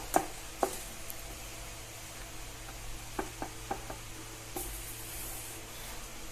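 Light plastic clicks and taps as pedestal-fan parts are handled, the collet on the fan motor being loosened, with a few sharper knocks near the start and a cluster of clicks a little past the middle. A steady low hum runs underneath.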